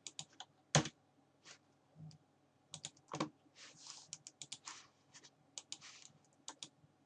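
Irregular clicks and key taps of a computer keyboard and mouse, with one sharper click about three-quarters of a second in.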